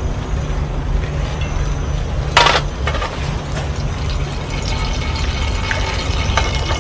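Excess cooking oil being poured off from a frying pan, with one short, louder noisy burst about two and a half seconds in, over a steady low hum.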